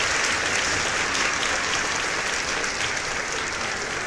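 Many racing pigeons flapping their wings at once as they crowd into the loft: a dense, continuous clatter of wingbeats that eases off slightly toward the end.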